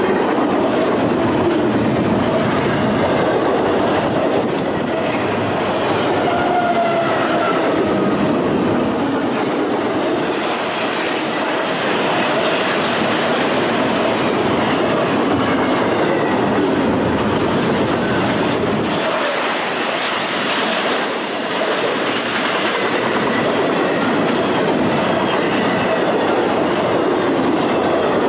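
Double-stack container train's well cars rolling past close by: a loud, steady rumble and clatter of steel wheels on the rails.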